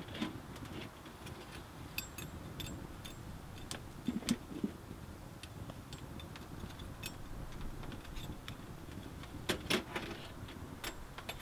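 Wood fire crackling and popping inside a small steel box wood stove, with irregular sharp snaps, a few clustered about four seconds in and near the end, over a steady low rumble.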